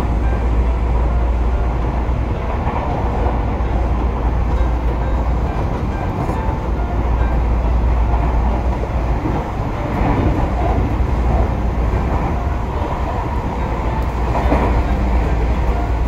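Inside a Tobu Urban Park Line (Noda Line) electric commuter train running along the line: a steady rumble of wheels on rails with a deep low drone underneath.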